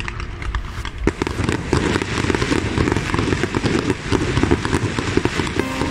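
Aerial fireworks going off: a sharp bang about a second in, then dense, rapid crackling and popping of bursting shells.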